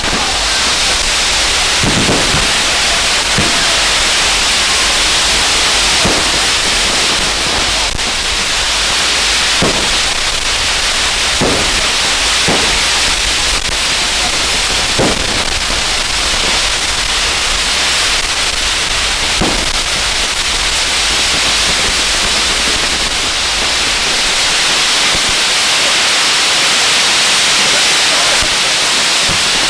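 Ground fireworks burning: a steady, loud hiss of gerbs and fountains driving a set piece, with a few faint pops scattered through it.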